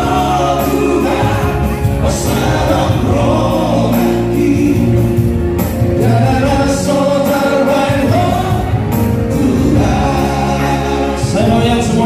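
Male vocal trio singing together in harmony into microphones over a musical accompaniment with a steady bass.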